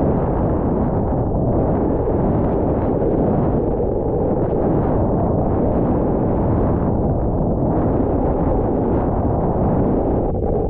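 Wind buffeting a microphone: a loud, steady rushing noise, heaviest in the low end, with no break.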